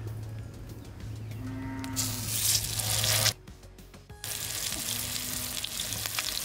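Hot oil sizzling around a whole masala-coated red pomfret frying in a wide, flat iron pan. It cuts out for about a second just past the midpoint, then resumes. A low steady hum runs under the first half, and two short low tones come through.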